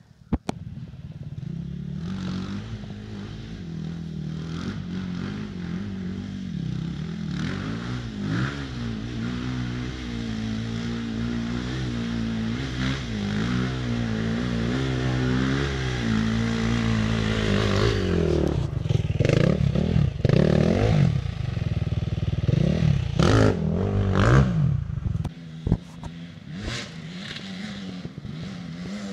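Enduro dirt bike engine running and revving in bursts as it is ridden over rough bush ground. The revs get louder and sharper about two-thirds of the way through, then drop off briefly near the end before the engine carries on.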